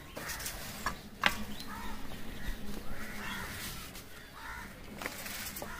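Crows cawing repeatedly, a caw every second or so. Over them come a few sharp crackles and clicks as banana leaves are handled and laid on a steel plate, the loudest about a second in.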